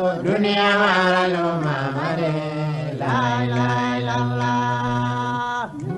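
A man's voice chanting an Islamic devotional chant in Soussou. He sings long drawn-out notes that slide in pitch, drops to a low held note about two seconds in, and breaks off briefly near the end.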